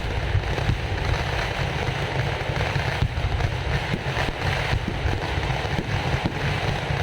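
Temple festival fireworks (vedikettu) going off in a dense, continuous barrage: a steady low rumble under a constant rain-like crackle of many small bangs.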